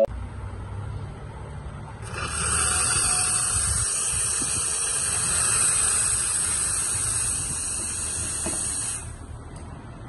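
Steam wand of a Gaggia two-group commercial espresso machine opened to vent steam. It gives a loud, steady hiss that starts about two seconds in and cuts off about a second before the end, showing the boiler is up to steam pressure.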